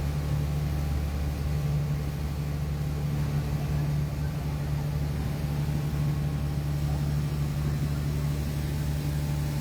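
Boat's engine running at a steady speed, a constant low drone.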